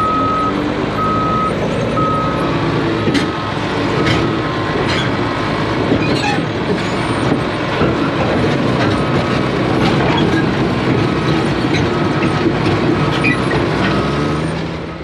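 D4 crawler dozer's diesel engine running as it backs down off a trailer, its backup alarm beeping steadily, with scattered metallic clanks.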